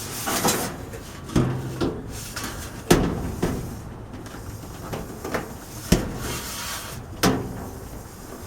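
Irregular clunks and knocks from inside a GE clothes dryer's cabinet as the drive belt is hooked around the idler and drum, with about eight sharp knocks over a low rumble.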